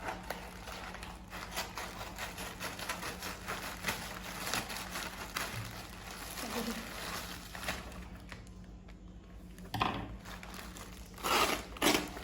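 Packaging of a toy being opened and handled: irregular crinkling, rustling and scraping, with a few louder handling knocks near the end.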